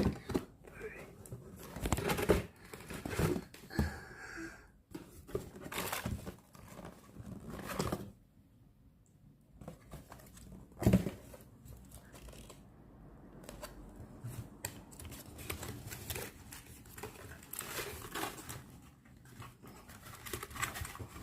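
Doll box packaging being opened by hand: plastic and cardboard crinkling and tearing in irregular rustles and clicks, with a quiet pause about eight seconds in.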